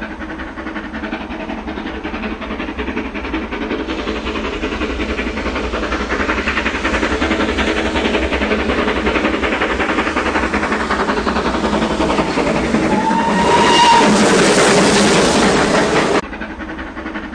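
Steam locomotive approaching and passing close by, its rhythmic running noise growing steadily louder. A short whistle blast sounds about thirteen seconds in, and the sound cuts off suddenly near the end.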